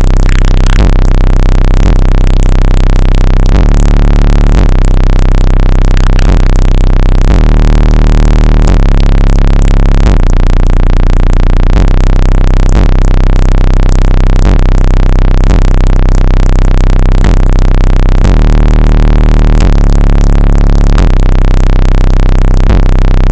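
Very loud bass-heavy electronic music played through a car's high-power subwoofer system. The deep bass notes change about every second, and the bass overloads the microphone into constant distortion.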